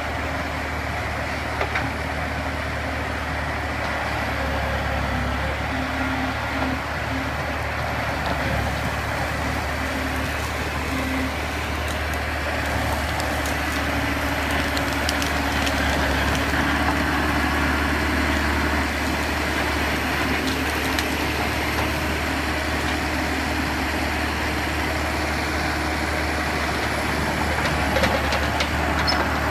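Caterpillar 963 track loader's diesel engine running steadily under load while it pushes over trees and brush, with a few brief knocks.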